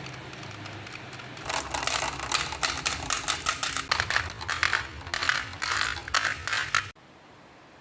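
Marbles rolling and clattering down a marble run slope track, a rapid stream of clicks and rattles that starts about a second and a half in and cuts off abruptly near the end. A low rolling rumble comes before the clattering.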